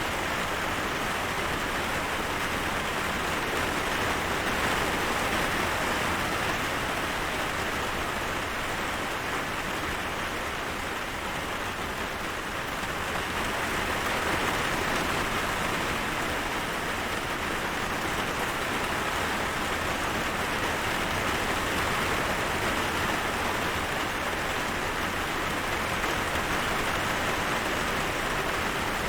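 Steady rain falling: a dense, even noise of drops with slight swells and easings in loudness.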